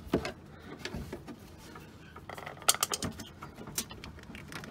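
Small plastic clicks and rattles as the wire clip and electrical connector are worked off a windscreen washer pump by hand, with a sharper click a little over halfway through.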